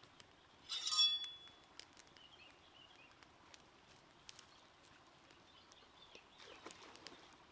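Wood campfire crackling with scattered sharp pops. About a second in, a short, loud, high-pitched call stands out, and soft footsteps on stones follow near the end.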